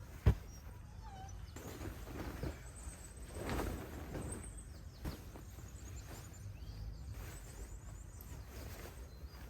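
Outdoor ambience: a single sharp knock just after the start, a rustling swell a few seconds in, and faint high chirping throughout.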